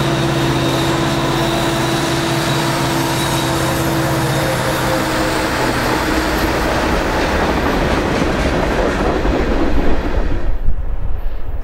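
Diesel freight locomotive passing close by with its engine droning, followed by the steady rolling noise of wheels on rail as the freight cars go past. Near the end the sound changes suddenly to a lower rumble with a few loud thumps.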